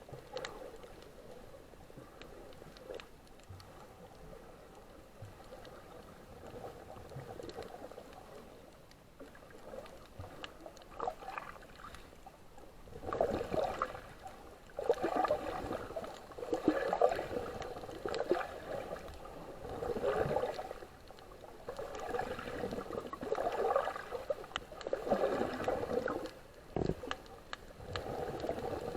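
Water gurgling and sloshing, quiet at first, then in repeated loud surges every second or two from about halfway through.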